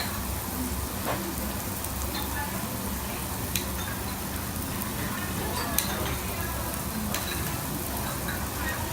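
Beef sizzling steadily on a Korean barbecue grill, with a few sharp pops of spitting fat.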